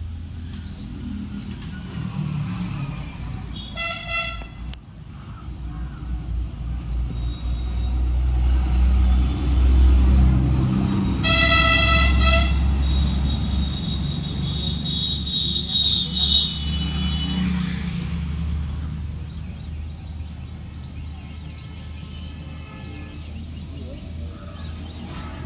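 Two vehicle horn toots, a short one about four seconds in and a longer one near the middle, over a steady low drone that swells in the middle. Faint high chirps repeat about twice a second.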